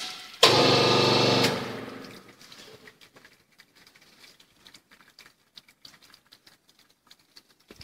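The pump motor of a hydraulic cocoa butter press starts suddenly about half a second in and runs loudly with a steady hum for about a second. It then winds down over the next second, leaving only faint clicks.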